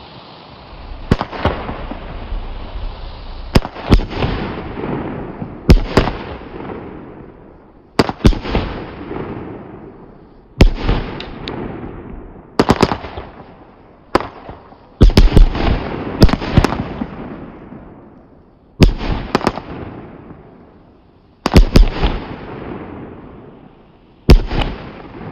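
Weco Bloody Brilliant 20 mm consumer firework battery firing its shots: a dozen or so sharp loud bangs a second or two apart, some in quick groups of two or three, each followed by a rumble that fades away.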